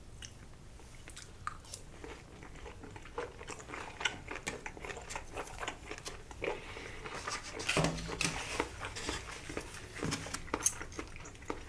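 Close-miked chewing of a mouthful of popcorn shrimp sushi roll, the crispy fried shrimp crunching in irregular little clicks.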